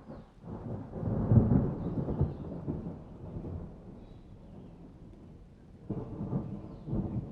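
Thunder rumbling over rain: a loud rolling peal that swells about a second in and dies away, then a second, shorter rumble near the end.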